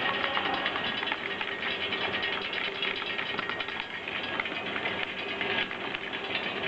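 Capsule printing machine running: a steady, dense clatter of small mechanical clicks.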